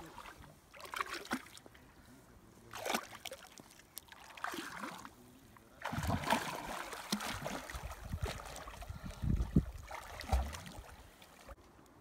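Water splashing by hand at a lake's shallow edge: a few separate splashes as water is scooped up, then steadier, louder splashing from about six seconds in as a person wades and strokes with her arms.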